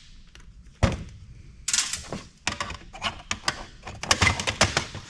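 Knocks and clattering of metal and plastic computer parts being handled during disassembly. There is one sharp knock about a second in, then a busy run of clicks and rattles from a little before two seconds on.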